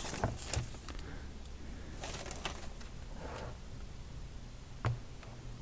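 Quiet handling of parts and packaging: a few soft clicks and knocks, the clearest about five seconds in, over a faint low hum.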